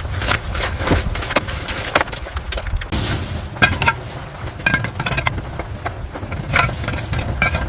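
Construction-site sounds: irregular knocks, clacks and a few ringing metal clinks of tools and materials over a steady low rumble.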